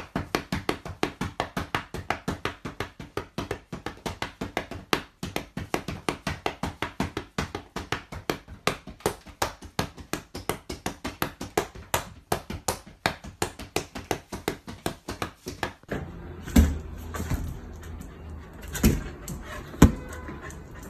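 A quick, even run of sharp clicks, about five a second, as a cockatoo tussles with a toy shaken at it by a hand. After a break about sixteen seconds in, three dull low thumps.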